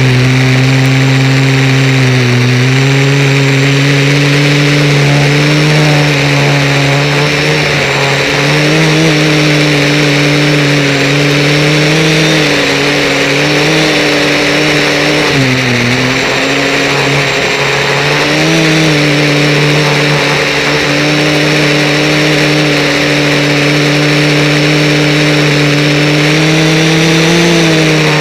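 Motor and propeller of a small remote-controlled aircraft heard from its onboard camera: a steady droning hum whose pitch wavers and steps slightly as the throttle changes, dipping briefly about fifteen seconds in.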